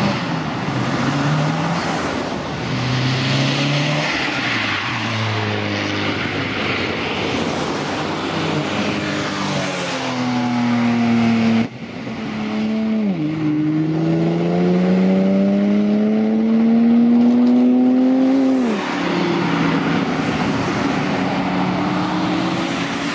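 Car engine running at low revs with a shifting pitch, then, after a brief break about halfway, accelerating hard: its pitch rises steadily for about five seconds and drops sharply as it shifts up.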